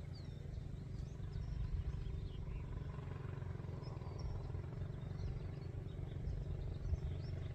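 Quiet outdoor field background: a low steady rumble with faint, scattered high chirps.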